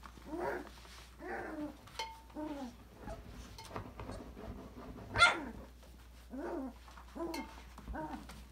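Five-week-old Australian labradoodle puppy barking: short yapping barks about one a second, the loudest and sharpest about five seconds in.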